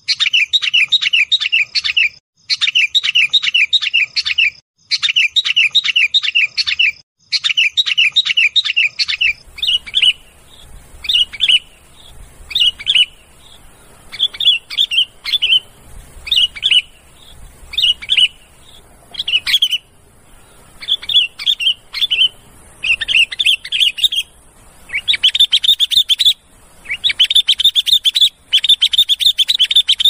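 Sooty-headed bulbuls calling in a noisy chatter of quick repeated notes. For about the first nine seconds the calls come in regular bouts about a second and a half long with short gaps between them. Then a faint hiss comes in behind them, the calls turn scattered, and they thicken into dense continuous chatter near the end.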